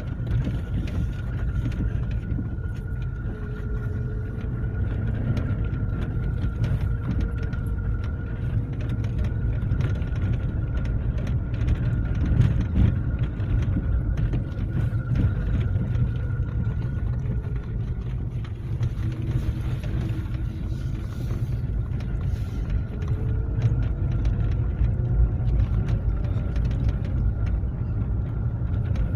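Car driving slowly over a rough, potholed dirt road, heard from inside the cabin: a steady low rumble of engine and tyres with a faint high whine, and small knocks and rattles from the bumps.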